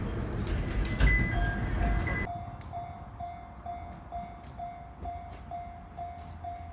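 Train running noise for about two seconds, cut off abruptly, then a Japanese railway level-crossing warning bell ringing steadily at about two strikes a second.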